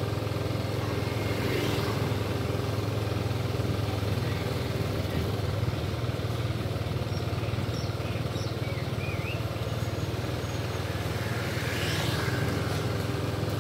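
Street traffic of motorbikes and cars running steadily, with a vehicle passing about two seconds in and another near the end.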